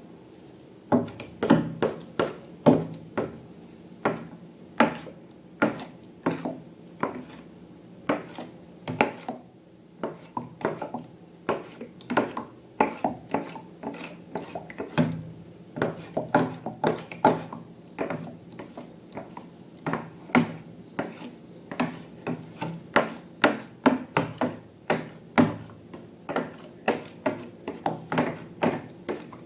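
Slime being worked in its container, with a run of irregular sharp clicks and taps, two or three a second, starting about a second in.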